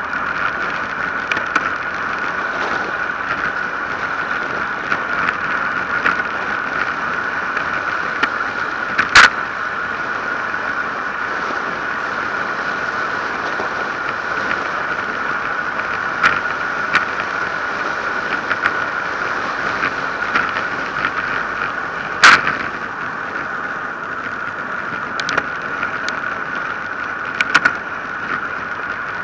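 Steady rush of wind and tyre noise on an action camera's microphone during a fast road-bike descent, with a few sharp clicks and knocks, two of them loud, about nine seconds in and about twenty-two seconds in.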